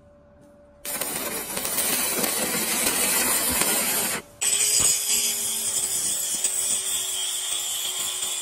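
Stick (arc) welding on steel plate: the electrode's arc crackles and sizzles for about three seconds, starting about a second in. After a short break, a small angle grinder runs with a steady whine as its disc grinds the steel.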